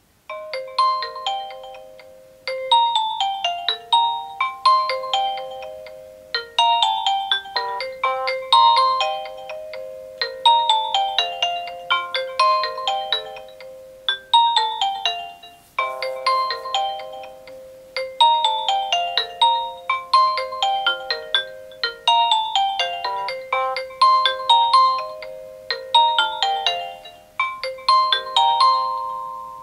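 A Nokia N70 ringtone playing: a synthesized melody of quick notes that fade after each attack. The phrases restart about every two seconds, and the tune begins just after the start and stops just before the end.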